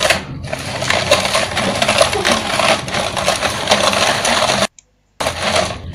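Ice cubes rattling and clinking against a bowl and a metal can as the can is spun by hand in salted ice, churning a homemade ice cream mix to freeze it. The clatter cuts out suddenly for about half a second near the end.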